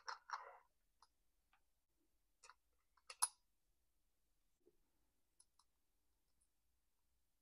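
Faint clicks of small metal parts as a rim sprocket is slipped onto a chainsaw's clutch drum and crankshaft: a quick cluster at the start and a sharper click about three seconds in, otherwise near silence.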